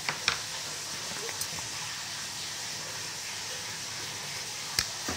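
Steady faint hiss with a few short, light clicks and taps: two at the start, one about a second and a half in, and two near the end.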